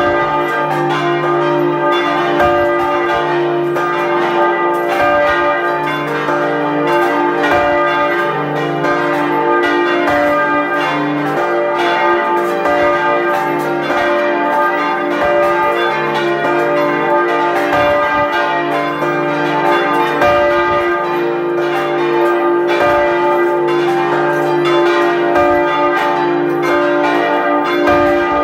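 Full peal of several large bronze church bells swinging together, heard close up in the belfry: a dense, unbroken run of clapper strikes over a continuous wash of overlapping ringing tones.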